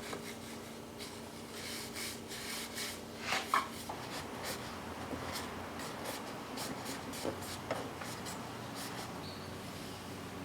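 Fine 320-grit sandpaper rubbing on wood in a series of short, irregular strokes.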